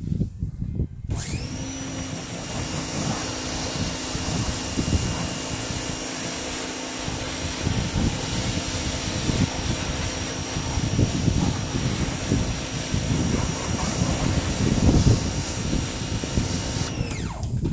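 Electric pressure washer starting up about a second in, then running steadily with a high motor whine and the hiss of its spray rinsing soap off the car, with the water spattering on the paint and the concrete. Near the end it shuts off and winds down.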